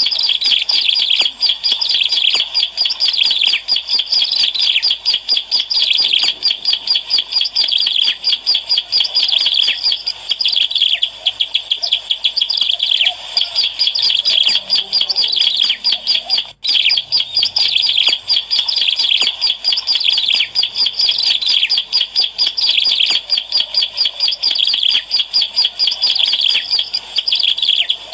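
Ciblek alang-alang, a prinia, singing nonstop: a fast, unbroken run of high, thin chirps, repeated many times a second, with one short break about halfway through.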